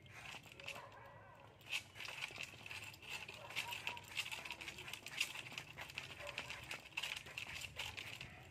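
A knife scraping and cutting a bamboo pole as it is cleaned for a fishing rod, giving irregular scrapes and sharp clicks.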